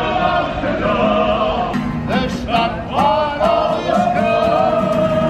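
A group of men singing together to an acoustic guitar, holding long notes.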